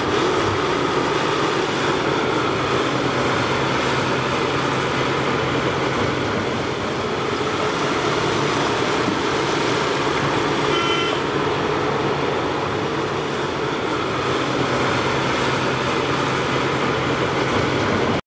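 Caterpillar 6015B hydraulic mining excavator working at a haul truck, its diesel engine running steadily under load with rock and machinery noise. A short high beep sounds about eleven seconds in.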